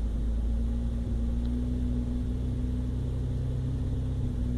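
Toyota Land Cruiser FZJ80's 4.5-litre 1FZ-FE straight-six engine running steadily under light throttle. It sounds a lot smoother, though not perfectly smooth: a little shakiness remains after a rough-idle problem.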